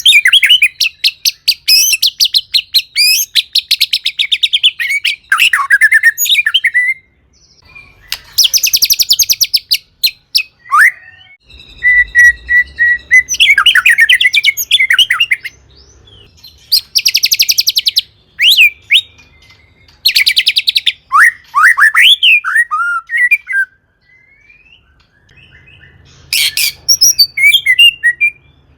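White-rumped shama (murai batu) singing loudly in separate phrases with short pauses between them: fast rattling trills alternate with clear whistled notes that slide up and down.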